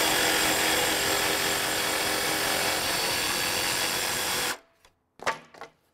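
A cordless DeWalt FlexVolt jigsaw runs steadily, sawing through a board as the last of the cut is finished, and cuts off suddenly about four and a half seconds in. A few brief knocks follow.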